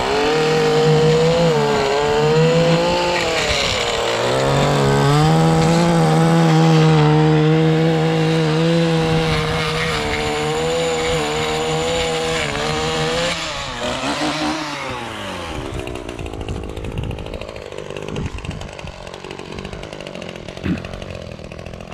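Two-stroke gas stick edger running at high throttle as its blade cuts back the turf around an in-ground box, its pitch rising about four seconds in and wavering a little under load. About two-thirds of the way through it drops back to a quieter idle.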